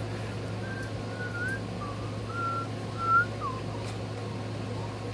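A person whistling a short, wandering run of about five notes, some held flat and some sliding up or down, ending with a falling slide about three and a half seconds in. A steady low hum runs underneath.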